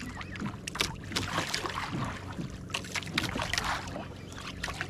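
Jigging rod and reel being worked to bring in a big hooked fish, with scattered clicks and splashy water noise over a steady low hum.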